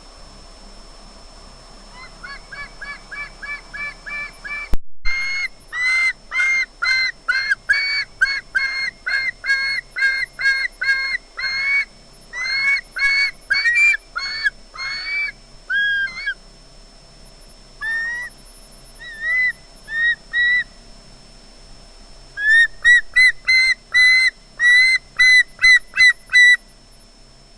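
Female osprey giving repeated short, squealy calls, a couple a second, in two long rapid runs with sparser calls between. Squealing as if expecting a fish delivery.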